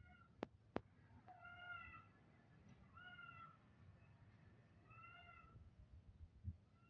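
Three faint, arching animal calls, each about half a second long and a second or two apart, with two sharp clicks near the start and a soft thump near the end.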